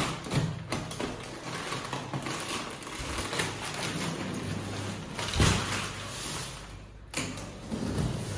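Thick plastic wrapping crinkling and rustling as it is pulled and handled around a large cardboard box, with a louder crackle about five seconds in and another sudden one near seven seconds.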